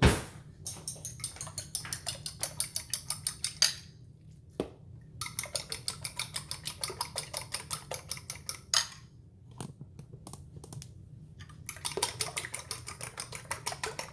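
Fork or whisk beating raw eggs against a bowl: rapid rhythmic clinks, about five a second, in three spells with short pauses between.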